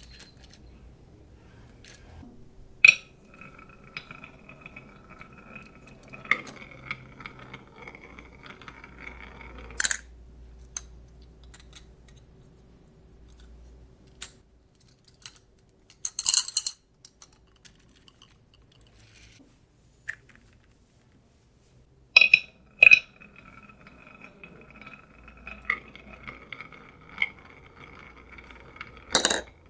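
Marbles running down a HABA wooden marble run: a sharp clack as each run starts, then a steady ringing hum for several seconds as the marbles roll along the track, ending in clinks and clacks. This happens twice, with scattered clicks between.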